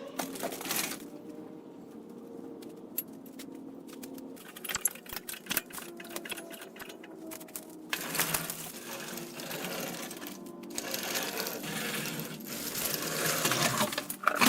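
Irregular metal clattering and rapid mechanical clicking and rattling, heaviest in the second half, from equipment being handled and moved.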